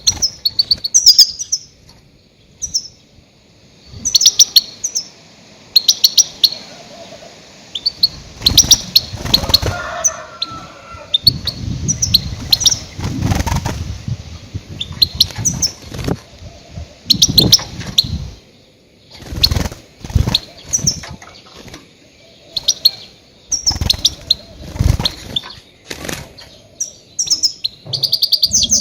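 Goldfinch calling: clusters of short, high twittering chirps repeated every second or two, with irregular bursts of lower noise between them.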